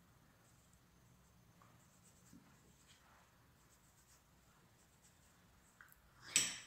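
Faint soft brushing of a makeup powder brush swept over the skin of the cheek, close to near silence, with a few light ticks. A short breathy hiss near the end is the loudest sound.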